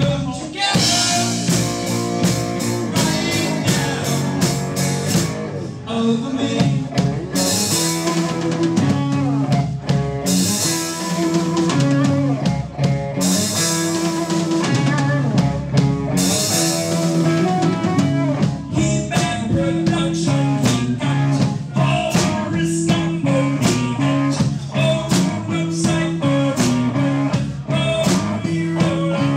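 Blues-rock band music with drum kit and electric guitar, playing at a steady beat.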